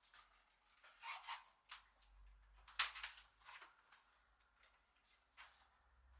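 Faint rustling and short scraping handling noises, a few separate strokes with the clearest near the middle.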